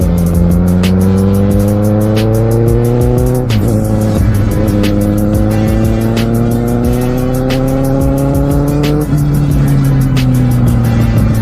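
Kawasaki Z750R's inline four-cylinder engine pulling up through the gears. The pitch climbs steadily, drops with an upshift about three and a half seconds in, climbs again, and drops with another upshift about nine seconds in before easing off slightly.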